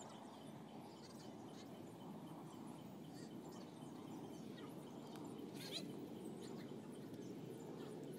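Faint outdoor background noise: a steady low rumble, with a few short, faint high chirps and one clearer chirp about two-thirds of the way in.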